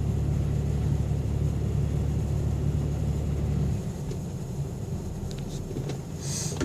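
GMC Sonoma's 4.3 L V6 running steadily, then shutting off about four seconds in, leaving a lower hum and a few light clicks. The scanner logs misfires on this engine, yet none are felt and the power balance test shows all cylinders contributing equally.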